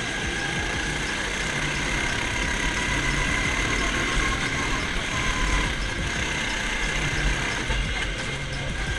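Go-kart engines running steadily at speed, heard from on board a kart following other karts closely around the track.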